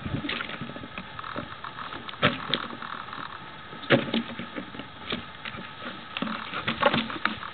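Irregular clicks and knocks from a white plastic flower pot as a Malamute carries it in its mouth and bumps it about, the sharpest knocks about two, four and seven seconds in. Under it runs the old camcorder's own faint clicking and hum.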